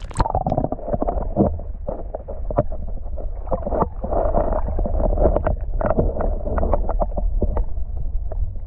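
Water splashing and sloshing close to the microphone as a carp is released back into the lake, with many short splashes over a steady low wind rumble on the microphone.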